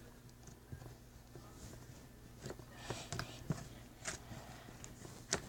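Slime being poked and squeezed by fingers: a few faint, scattered sticky clicks and pops.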